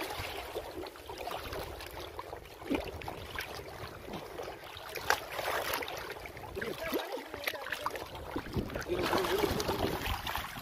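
Lake water splashing and sloshing irregularly, with a couple of sharper splashes.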